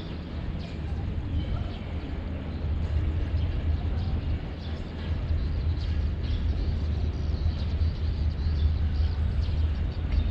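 Low rumble of an approaching Vietnam Railways diesel train, still some way off and slowly growing louder, with a few faint high chirps over it.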